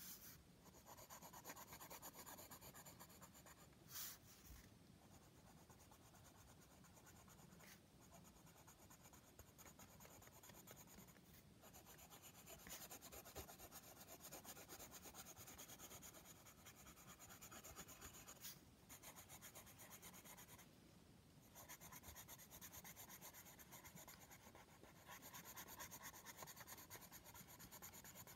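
Coloured pencil shading on paper in quick back-and-forth strokes, faint, stopping briefly a few times.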